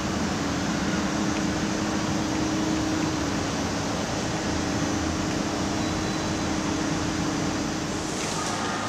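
Euskotren 900-series electric multiple unit rolling slowly into a platform: a steady electric hum with one held tone from the traction equipment, over the noise of the running gear, the tone fading out shortly before the end.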